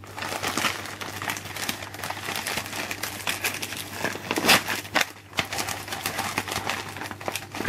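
Clear plastic packaging bag crinkling irregularly as fingers handle it and work at its taped opening, with the sharpest rustle about four and a half seconds in.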